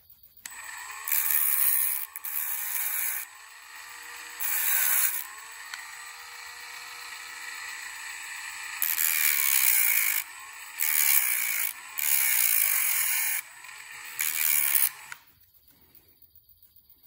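Dremel rotary tool with a thin cutting wheel cutting a slit in a small copper piece. The motor starts about half a second in, gives a harsh grinding in about seven short passes as the wheel bites, runs more quietly in between, and stops near the end.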